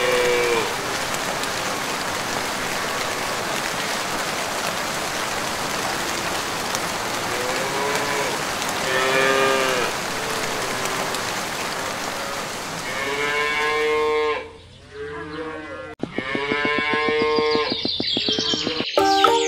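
Cows mooing several times over a steady hiss of rain; the later calls are louder and longer, and the rain hiss stops about fourteen seconds in.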